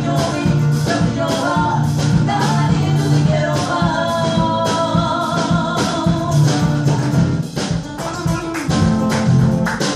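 Live band music: a woman singing over an acoustic guitar and a drum kit. The singing stops about three-quarters of the way through, leaving the guitar and drums playing.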